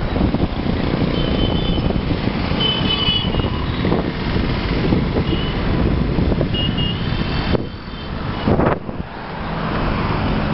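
Busy street traffic heard from a moving vehicle: a heavy, steady rumble of engine, road and wind noise, with several short high-pitched horn toots from nearby vehicles in the first seven seconds. The rumble dips briefly near the end.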